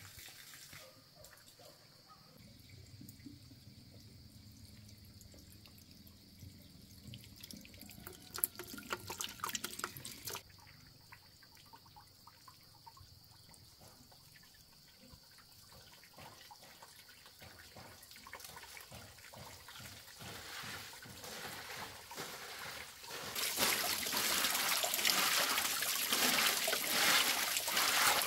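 Water trickling and running, growing much louder about 23 seconds in. A quick run of clicks and knocks comes around 8 to 10 seconds in.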